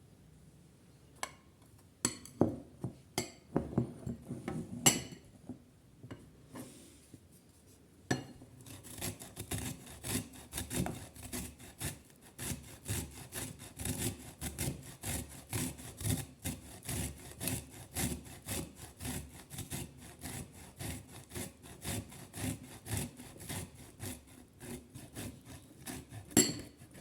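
A few scattered knocks and clicks, then from about eight seconds in a long run of rapid scraping strokes, several a second, that stop just before the end.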